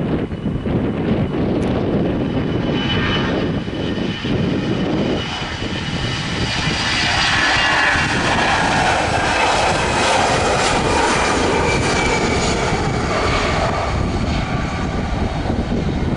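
Airliner engines passing close by, the whine building to its loudest about halfway through, then easing. Wind buffets the microphone underneath.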